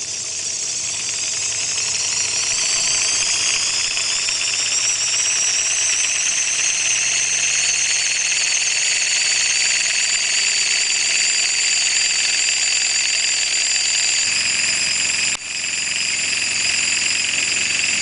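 Vex robotics kit motor spinning a wheel at high speed in a stress test: a high-pitched whine that climbs in pitch over the first few seconds as it spins up, then holds steady, with a brief dip about fifteen seconds in.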